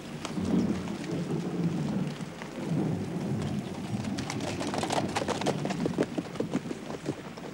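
Horses' hooves on the ground. First a low, rumbling thudding, then from about four seconds in a quick run of sharp clip-clop knocks.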